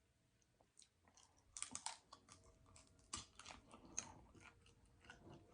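Faint eating sounds: chewing with a scattering of small mouth clicks and smacks, mostly in the middle of the stretch.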